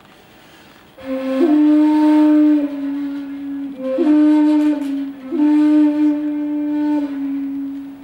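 Shakuhachi (end-blown bamboo flute) holding one low, breathy note that enters about a second in from a short higher grace note. It is re-attacked twice with quick upward flicks in pitch, swells and eases, and fades out near the end.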